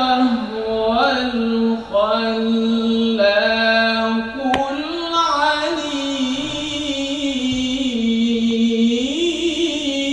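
A male qari reciting the Quran in the melodic tajweed style, solo and unaccompanied. He holds long notes and ornaments them with pitch glides, over a few drawn-out phrases. There is a brief click near the middle.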